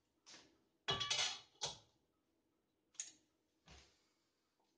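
Metal ladle clinking and scraping against a stainless-steel Zepter pot and bowl as borscht is served: a few short knocks, with a cluster and a brief ring about a second in, and two more single knocks near the end.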